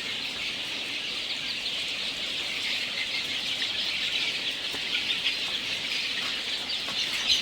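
A large flock of caged laying hens calling all at once: a dense, steady din of many overlapping high-pitched calls.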